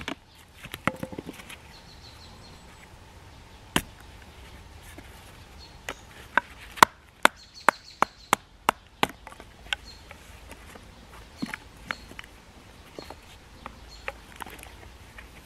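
Bushcraft knife working dry sticks, struck through with a wooden baton and carving: a run of sharp wooden knocks and cracks, a few at first, densest about six to nine seconds in, then fainter cuts near the end.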